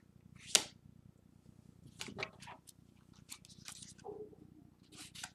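Paper guidebook pages being flipped and rustled: a string of short, crisp swishes, the loudest about half a second in.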